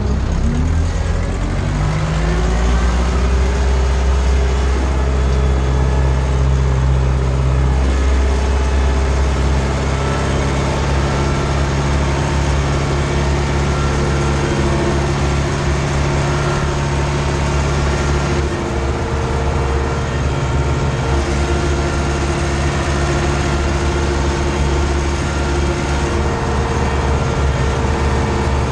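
Ursus C-360 tractor's four-cylinder diesel engine running under load while pulling a cultivator, heard from inside the cab. Its pitch rises over the first couple of seconds, then holds steady.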